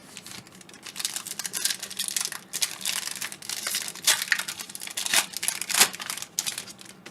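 A card pack's wrapper being torn open and crinkled by hand: a dense run of crackling that starts about a second in and dies away near the end.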